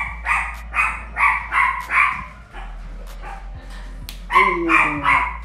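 A dog barking repeatedly, two or three barks a second, in two runs with a pause of about two seconds between them.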